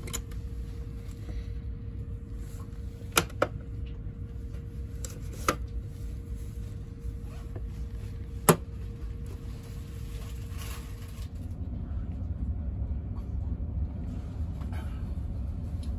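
Plastic seatback tray table on a train seat being unlatched and folded down: a few sharp clicks about three and five seconds in, then a louder knock as the table drops open, over the steady low hum of the train standing at the platform.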